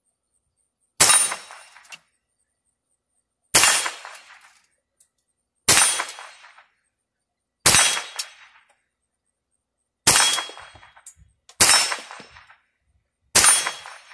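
Seven single shots from a Ruger 10/22 .22 rimfire semi-automatic rifle, fired one at a time about two seconds apart, each a sharp crack that dies away within a second.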